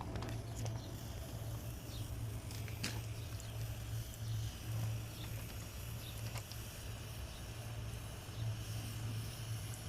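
A steady low machine hum, with a few light clicks or taps.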